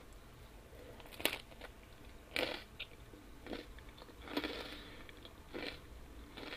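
A person chewing pizza, with crunchy bites and chews coming in about six separate bursts roughly a second apart.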